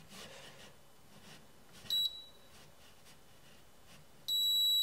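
Handheld electronic stud finder beeping against drywall: one short high beep about two seconds in, then a steady high beep from near the end, the tone such a finder gives when it is over a stud.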